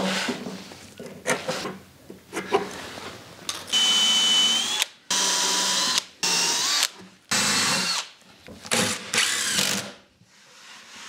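Cordless drill driving countersunk screws through a plywood top into a 2x4 frame: about six short runs of the motor in the second half, with a whine that drops in pitch as each screw seats, and a few knocks before them.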